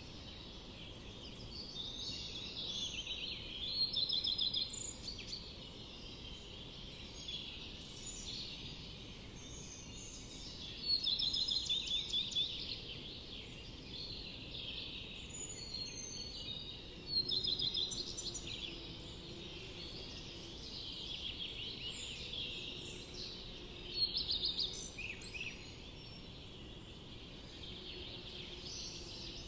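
Several wild birds singing in a forest, with overlapping chirps and rapid trilled phrases, the loudest phrases coming every several seconds.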